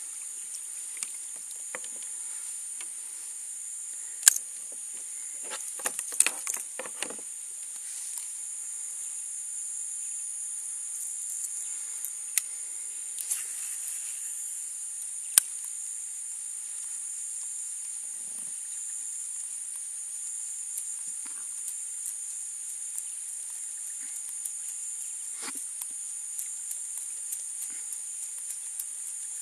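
Steady high-pitched insect drone of crickets or cicadas over a marsh, with scattered sharp clicks and knocks, the loudest about four seconds in and about fifteen seconds in, and a short cluster of handling knocks around six to seven seconds.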